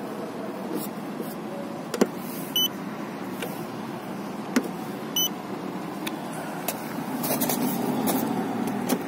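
A handheld paint-thickness gauge gives two short electronic beeps, a couple of seconds apart, each as it takes a reading of the paint layer on a car's body panel. A sharp click comes just before each beep as the gauge is set against the panel, over a steady background noise.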